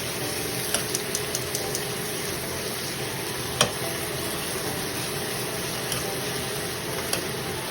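Vinegar-marinated beef liver frying in a pan of oil: a steady sizzle with scattered small pops and one sharper click about three and a half seconds in.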